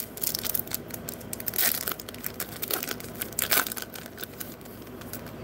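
Foil wrapper of a Bowman Platinum baseball card pack crinkling and tearing as it is ripped open by hand and the cards are pulled out. A dense run of quick crackles that dies down near the end.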